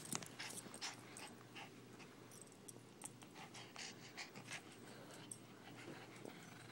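A Pomeranian tugging at a plush toy: faint breathing and scuffling, a string of short rustles and clicks as the toy and fur rub.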